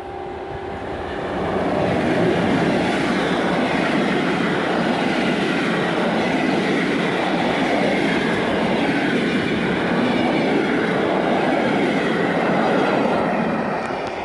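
Electric locomotive-hauled passenger train passing close by, with its wheels running over the rails. The sound swells about two seconds in as the locomotive goes past, stays loud and even while the coaches roll by, and eases off near the end.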